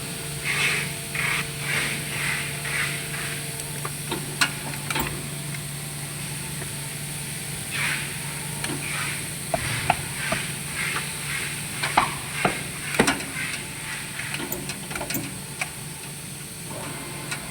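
Two runs of short rhythmic scraping strokes, about two a second, with a few sharp knocks in between, over a steady low hum.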